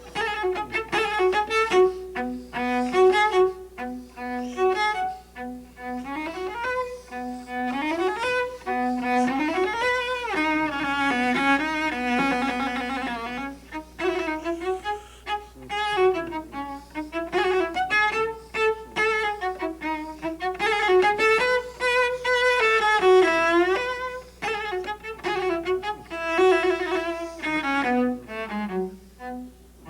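Solo cello playing a melodic passage, a demonstration of short, sharply articulated trills. It opens with short separate notes and moves to longer notes with wide vibrato in the second half.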